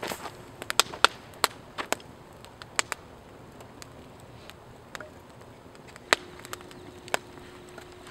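Wood fire of split logs crackling, with irregular sharp pops and snaps, several in quick succession early on and sparser later. A faint steady hum joins about six seconds in.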